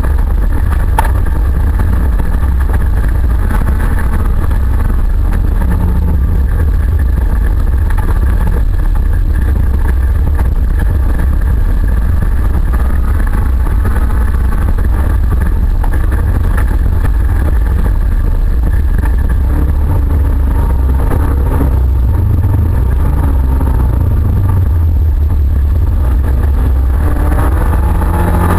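Autocross car's engine running hard, heard from inside the stripped, roll-caged cabin as a loud, heavy low rumble. The revs rise and fall with the driving, most plainly in the last several seconds.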